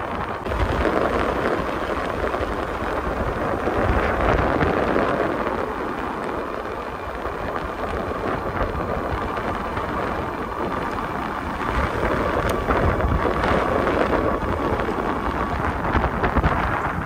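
Wind buffeting the microphone while riding an electric bike along a paved road, a steady rushing noise that swells and eases every few seconds.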